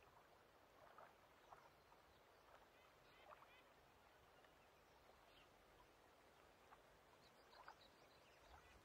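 Faint lake ambience: water lapping gently, with a few soft splashes or laps standing out now and then.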